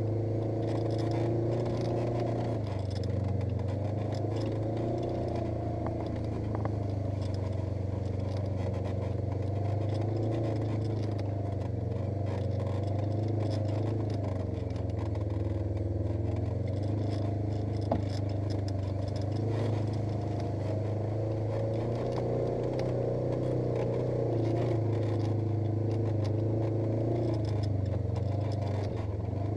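Polaris RZR 900 S side-by-side's twin-cylinder engine running steadily, its pitch rising and falling gently with the throttle, with light rattling and one sharp knock about two-thirds of the way through.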